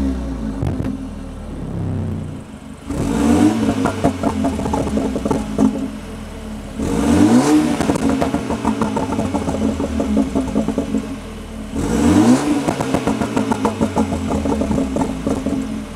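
BMW 228i's N20 turbocharged four-cylinder on a Bootmod3 stage 1 tune, heard at the twin tailpipes, idling and then revved three times. Each rev rises in pitch and falls back to idle.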